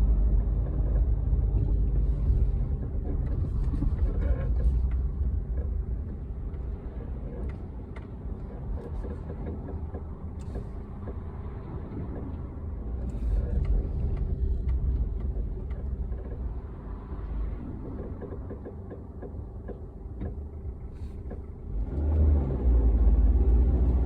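Low road and engine rumble of a 2005 Toyota Corolla on the move, with short creaks and clicks coming again and again at irregular times. The rumble grows louder near the end.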